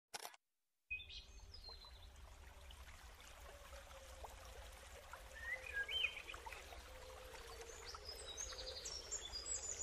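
Birds chirping and singing over a steady low background hum, the calls growing busier toward the end. A short burst of sound right at the start is followed by a brief gap before the birdsong begins.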